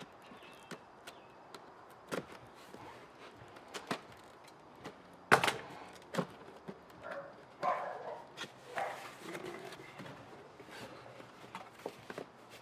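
A cardboard product box being opened and its packing handled: scattered knocks, taps and rustling, the loudest a sharp knock about five seconds in.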